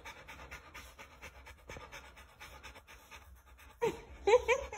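Rottweiler panting steadily in quick breaths. Near the end a run of short pitched sounds starts.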